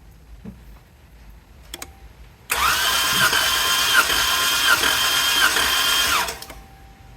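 Chrysler 3.6 Pentastar V6 cranking on its starter motor for about four seconds, starting and stopping abruptly, the starter's whine dipping and recovering in an even rhythm about every 0.7 s. It is being cranked for a compression test of cylinder 1, the misfiring cylinder, which reads low on pressure.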